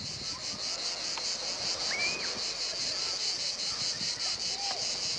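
Cicadas singing in a continuous high-pitched chorus that pulses evenly.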